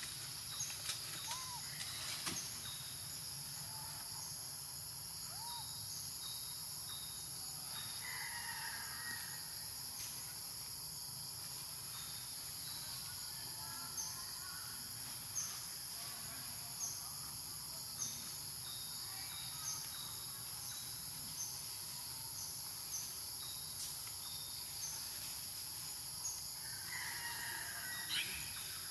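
Outdoor wildlife ambience: a steady high insect drone, with a short high call repeated about every second and a half and a few scattered brief calls.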